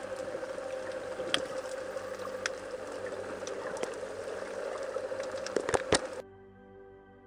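Underwater ambience picked up by a camera on a rocky sea bottom: a steady hum with scattered clicks and crackles, and two sharper knocks just before six seconds. About six seconds in it cuts to soft, sustained ambient music.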